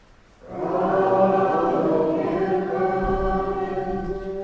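Many voices singing the chanted liturgical response to the announcement of the Gospel, one sustained sung phrase that starts about half a second in and fades near the end.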